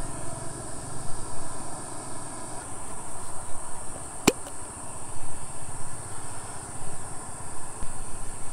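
Steady high chirring of insects over a low rumble, with a single sharp click about four seconds in as the plastic lid comes off a collapsible camping mug.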